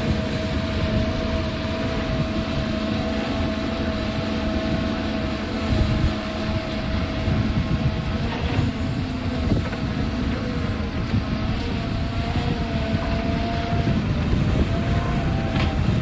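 Heavy diesel earthmoving machinery, an excavator loading a dump truck, running steadily: a held whine over a dense low rumble.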